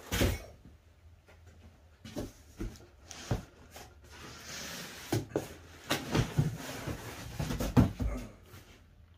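Cardboard shipping box and packing being handled and lifted off a boxed machine: a sharp knock right at the start, then scattered thumps and knocks of cardboard against the table, with a rustle of cardboard and plastic around the middle.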